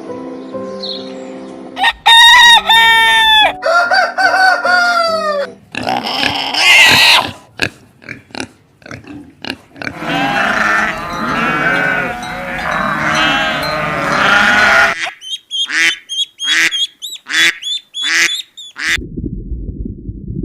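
Loud bird calls in several separate stretches: harsh, honking calls, then a dense chorus of many birds, then a series of sharp, separate calls. Background music plays under the first two seconds.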